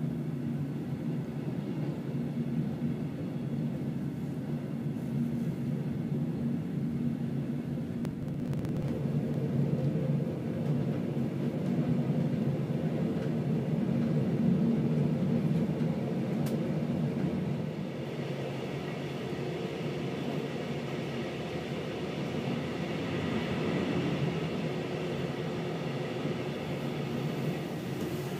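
Interior running noise of a moving Halberstädter compartment coach with tread (block) brakes: a steady rumble of wheels on rail. About two-thirds of the way through a higher rushing sound joins it.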